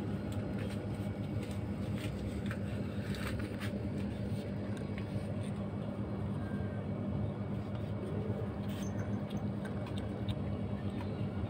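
A steady low mechanical hum, with faint scattered clicks of a kitten crunching dry cat food.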